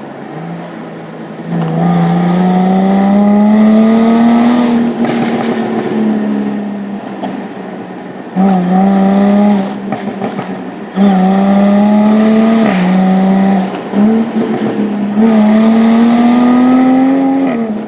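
Jaguar F-Type V6 S's supercharged 3.0-litre V6 heard from inside the cabin, accelerating hard through the gears. The engine note climbs in pitch and drops at each upshift, several times in a row, with sharp cracks at some of the gear changes.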